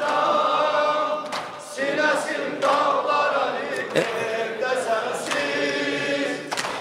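A group of men singing the refrain of an Azerbaijani mourning lament (noha) together, unaccompanied, with a sharp slap roughly every second and a half as the mourners beat their chests.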